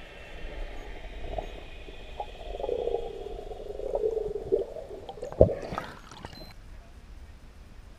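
Air bubbles burbling around an underwater camera, muffled by the water, with a wavering pitch. About five and a half seconds in there is a sharp knock and a brief splash as the camera breaks the water's surface.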